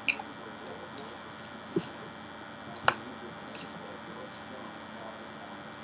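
Quiet room background with a faint steady high whine and a fast, even ticking. A few small clicks break it, the sharpest about three seconds in.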